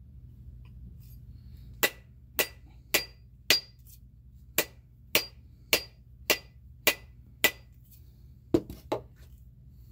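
Rubber mallet striking the end of a half hatchet's new wooden handle, driving the steel head down to seat it on the handle. The blows are sharp and come about two a second: four, a short pause, six more, then a quicker run of three near the end.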